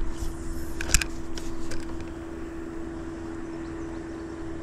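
Steady hum of a small electric motor over a low rumble. A few clicks and knocks sound in the first two seconds, the sharpest about a second in.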